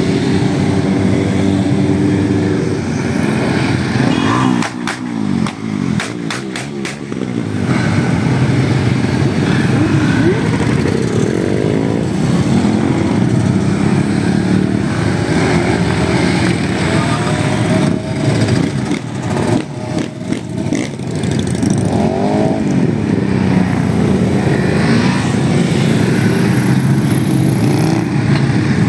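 A stream of motorcycles riding past one after another, engines running and revving, their pitch rising and falling as each goes by.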